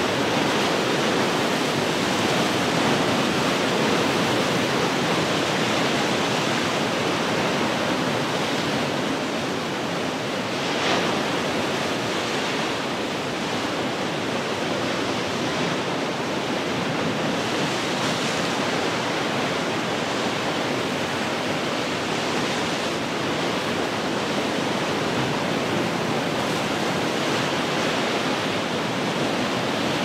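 Ocean surf breaking on rocks: a continuous rushing wash of water that swells and eases slowly, with one short, sharper crash about eleven seconds in.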